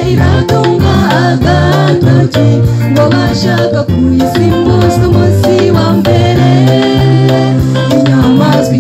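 A mixed choir singing an upbeat gospel song together, over a steady bass line and a regular percussion beat.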